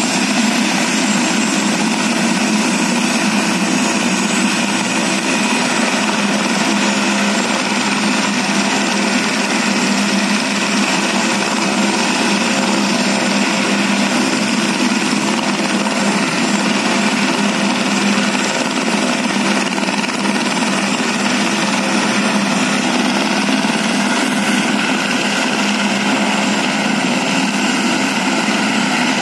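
Helicopter running on the ground, its turbine engine and rotor giving a loud, steady drone that holds at the same level throughout.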